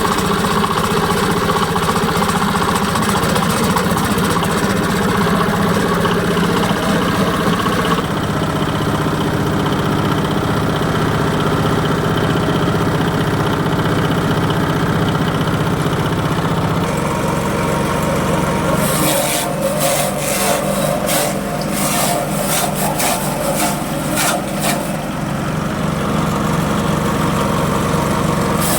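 Engine-driven grass chopper running steadily, its engine note shifting twice. About two-thirds of the way in, a quick irregular clattering joins the running machine.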